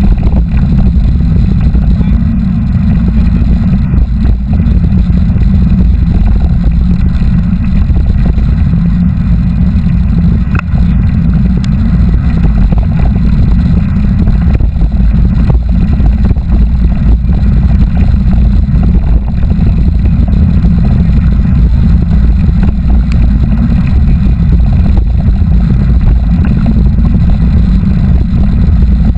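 Steady loud wind rumble on the microphone of a camera riding along on a mountain bike, with a few faint knocks.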